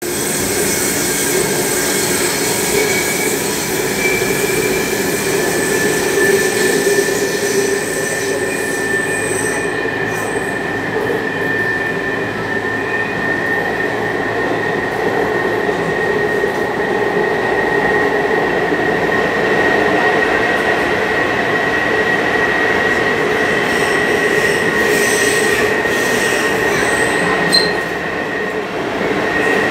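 Taipei Metro Circular Line train running, heard from inside the car: a continuous rumble of wheels on track with a high, steady whine. A sharp click comes shortly before the end.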